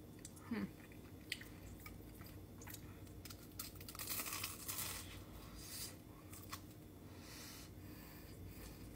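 Biting into and chewing a crispy Korean corn dog with a crust of fried potato pieces: crisp crunches, loudest about four seconds in and again near seven seconds, with softer chewing clicks between.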